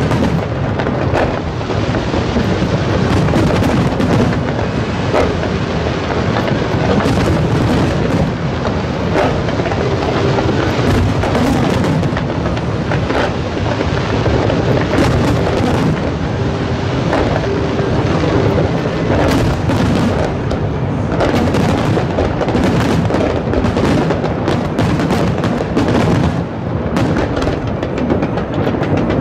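Aerial fireworks display: a dense, unbroken barrage of shells bursting, with many sharp bangs over a steady crackle and rumble.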